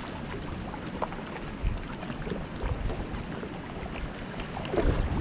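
Water moving and lapping around a kayak, with wind buffeting the camera's microphone in a few low gusts.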